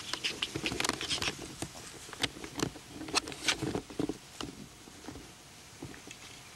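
Quick, irregular patter and rustle of footsteps moving through grass, busiest for the first four seconds or so and then thinning out.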